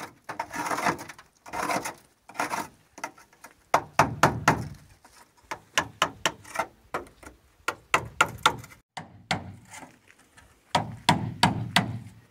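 Hand tool knocking at the rim of an old bath: a couple of short scraping sounds, then many sharp hammer-like knocks in uneven runs of two to four a second.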